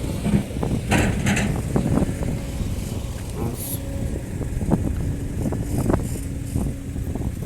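Diesel engine of heavy earthmoving machinery running steadily, with irregular knocks and clatter over it.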